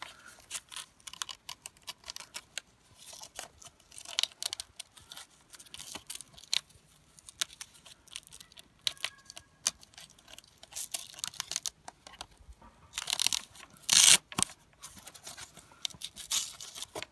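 Velcro (hook-and-loop) straps on a stroller baby nest being pulled tight and pressed down, a series of short ripping and rustling sounds. The loudest rips come about three-quarters of the way through.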